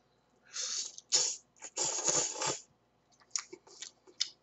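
A person slurping instant ramen noodles in three hissing pulls, the last about a second long, then smacking and chewing with short wet clicks.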